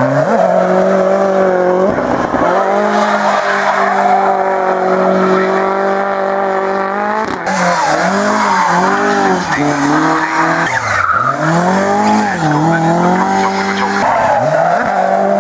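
Rally car engines at full throttle with tyre squeal as the cars slide sideways through corners. A Ford Fiesta rally car's engine is held at steady high revs while it drifts. About seven seconds in, a Mk2 Ford Escort's engine takes over, rising and falling roughly once a second as the throttle is worked through the slides.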